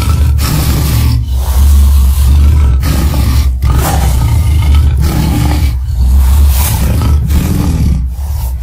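Tyrannosaurus-style monster roar sound effects: several long, deep roars in a row with a heavy low rumble, each broken off by a short pause.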